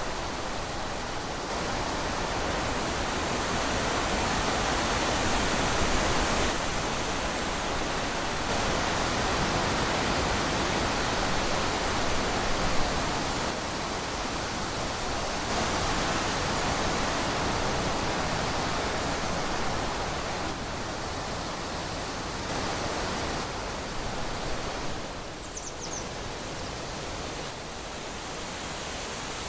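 Wind blowing through trees: a steady rushing noise that swells and eases slowly, with a brief faint high chirp near the end.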